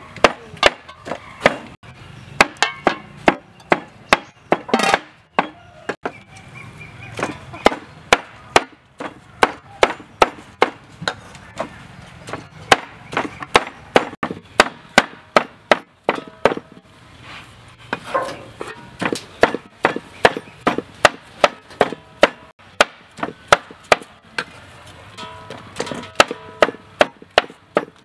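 Cleaver chopping raw minced pork on a wooden chopping board: a steady run of sharp knocks, about two to three a second.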